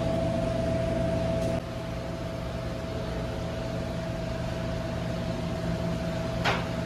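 Steady machine hum, a low drone with a steady mid-pitched tone over it. It drops a little in level about one and a half seconds in, and a short click sounds near the end.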